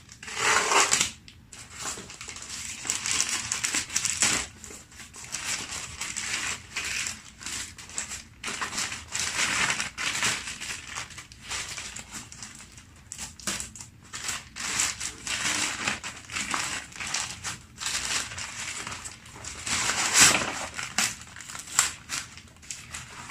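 A small parcel's packaging being opened by hand, with irregular crinkling, crumpling and tearing throughout. There are sharper bursts about a second in and again near the end.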